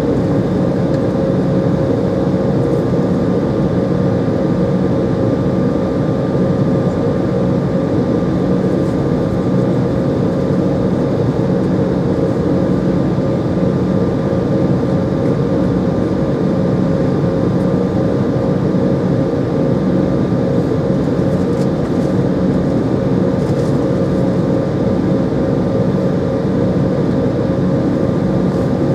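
Steady cabin noise of an Embraer 190 airliner with its GE CF34 turbofans at idle while the aircraft holds before take-off: an even hum with a thin steady whine over it.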